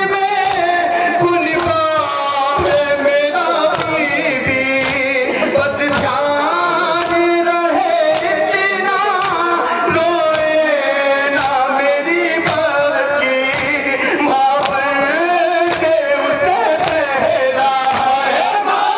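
Men chanting a noha, a Shia lament for Muharram, in a sung melody led over a microphone, with sharp hand slaps of chest-beating (matam) from the mourners.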